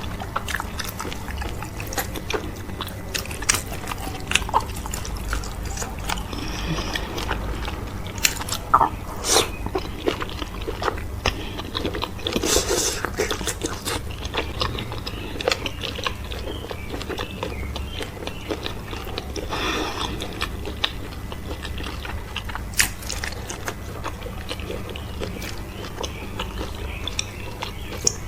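Close-miked chewing and biting of cow foot, okra soup and fufu: many small wet mouth clicks, with a couple of longer, noisier mouth sounds along the way.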